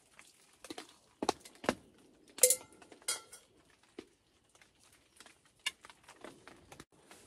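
Camp cookware being handled: a small metal pot, a stove and a mug knocked and set down in scattered light clicks and clinks. About two and a half seconds in comes one louder metallic clink that rings briefly.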